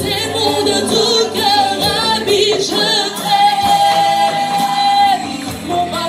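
Small gospel vocal group, mostly women, singing live in harmony into microphones, with vibrato; one long held note from about three to five seconds in.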